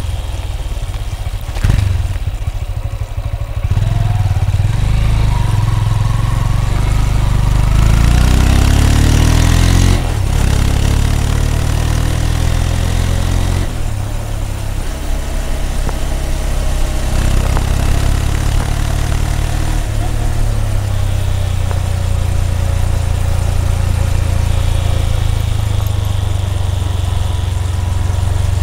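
Honda CB200X single-cylinder engine and exhaust while riding. The note climbs as the bike accelerates and drops sharply at gear changes about ten and fourteen seconds in, then runs steadier at cruising speed.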